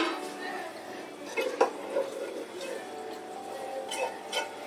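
Cooked rice draining in a stainless-steel colander over a metal sink: water dripping, with a few light clinks of the colander against the sink.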